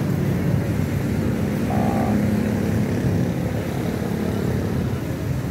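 A motor vehicle's engine running with a steady low rumble, a faint steady tone in it through the middle.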